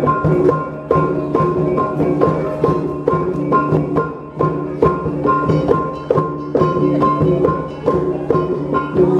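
Traditional Dayak dance music: quick, repeating strokes on tuned gongs over drums, one high ringing note struck again and again above a steady low drone.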